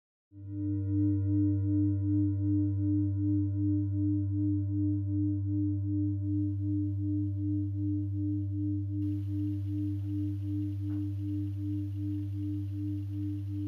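Singing bowl ringing with one long, low sustained tone that wavers in a steady pulse a few times a second. Its higher overtones fade out over several seconds. A faint hiss comes in about two-thirds of the way through.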